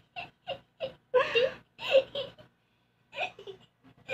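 Children's voices in a string of short bursts, giggling and brief unclear vocal sounds, with a pause of about half a second near the end.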